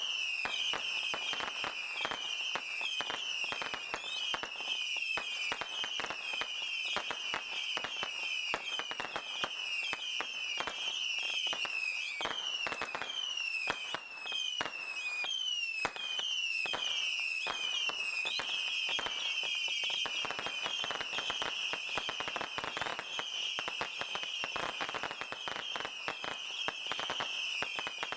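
A 1,000-shot missile barrage firework firing continuously in rapid succession: a dense stream of overlapping whistles, each dropping in pitch, over constant sharp pops and cracks.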